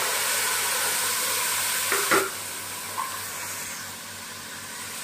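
Chopped tomatoes, coriander and curry leaves sizzling as they are tipped into hot oil and fried onions in a pressure cooker pan. The hiss is loudest at first and eases after a sharp knock about two seconds in, with a lighter knock a second later.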